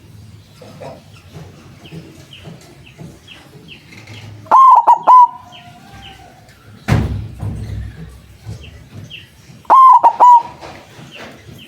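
White zebra dove (perkutut) cooing: two loud phrases of a few quick notes each, about five seconds apart. A dull thump comes between them, and faint high chirps repeat in the background.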